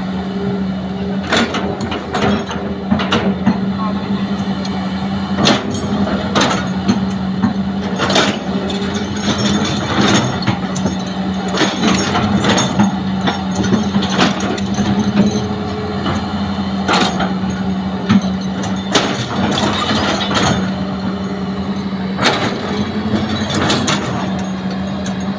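Heavy diesel machinery running at a steady drone, with frequent sharp clanks and knocks from the excavator working as it loads soil into a dump truck.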